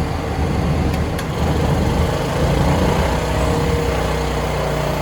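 2.8 kW inverter generator's engine running steadily under the load of two 1 HP spot air conditioners, whose compressors are running; a continuous hum with no break or stall.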